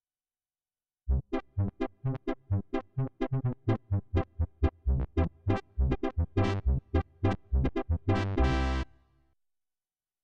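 Korg Pa900 arranger keyboard playing a sampled sound: a run of short, detached notes with a strong low end, about three a second, starting about a second in. It ends on one held note that dies away a little after the ninth second.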